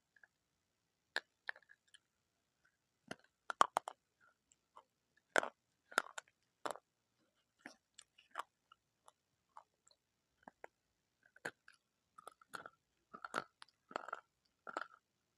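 Close-miked chewing of crunchy food: irregular sharp crunches and bites, the loudest a few seconds in, then a quicker run of softer, steady chewing near the end.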